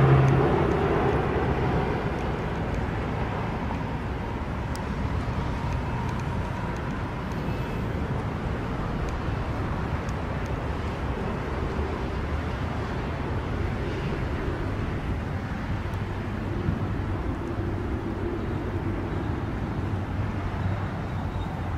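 A formation of display aircraft flying past, heard as a steady engine drone from the ground. It fades over the first two seconds and then holds level.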